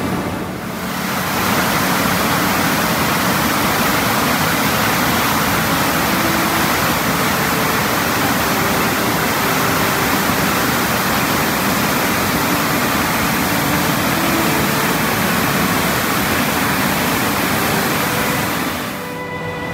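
Chaudière Falls: a heavy flow of water pouring over the falls, heard as a loud, steady rush. It comes up about a second and a half in and eases off near the end.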